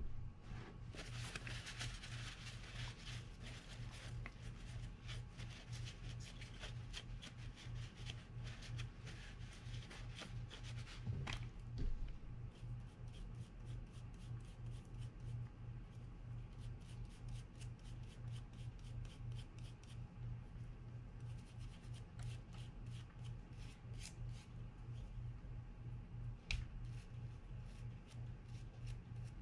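Toothbrush bristles scrubbing a small brass pinion gear from a spinning reel: a fast, scratchy run of brush strokes, busiest in the first few seconds, with a light knock near the middle. A low steady hum sits underneath.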